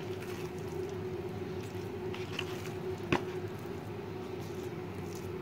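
Hands kneading soft dough in a plastic bowl: faint squishing, and one sharp knock about three seconds in, over a steady low hum.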